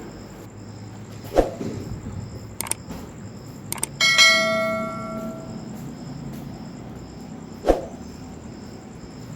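A metal object struck once about four seconds in, ringing with several clear tones that fade over a second or two; two dull thumps and a few small clicks fall around it.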